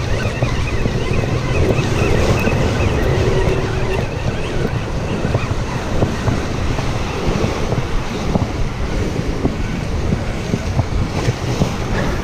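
Wind buffeting the microphone over surf washing against the rocks of a jetty.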